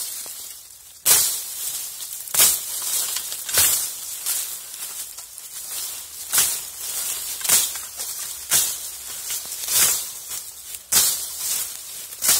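A sharpened garden shovel swung into raspberry canes, chopping them down with a swish and rustle of stems and dry leaves. About ten strokes, roughly one a second.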